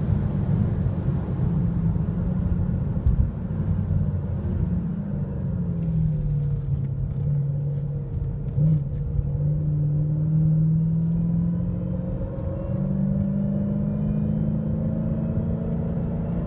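Dodge Charger SRT Hellcat's supercharged Hemi V8 heard from inside the cabin on track, over a steady rumble of road noise. The engine note falls away a few seconds in as the car slows for a corner, holds low, then climbs steadily near the end as the car accelerates out.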